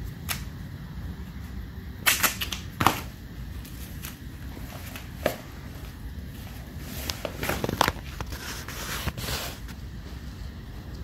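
Duct tape torn off the roll in several short, sharp rips while the end of a pipe liner is taped closed. The loudest rips come about two to three seconds in and again around eight seconds.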